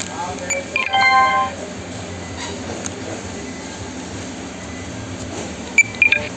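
Handheld barcode scanner beeping as spare parts are scanned: a short high beep, then a louder chord-like tone of several pitches about a second in, lasting half a second, and a few quick high beeps near the end. A steady low hum of warehouse ambience runs underneath.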